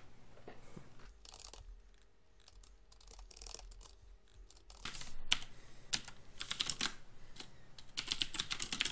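Typing on a computer keyboard: runs of keystrokes with short pauses between them, busiest in the second half.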